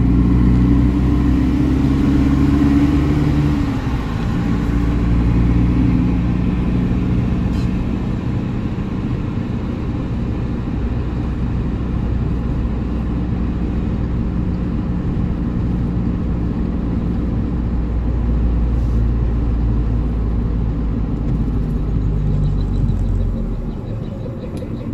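Audi TT running on the road, a steady engine drone with low tones that shift about four seconds in and drop off near the end, heard while coming off the throttle: the owner's complaint is a weird noise on deceleration.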